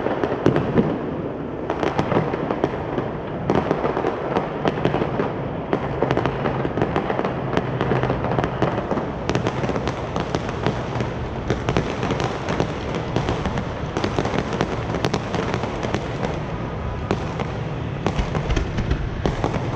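Aerial fireworks going off in quick succession, a dense run of bangs and crackle with no gaps.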